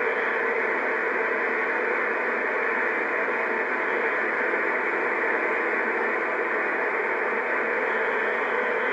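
A steady, even rushing noise with no breaks or changes in loudness.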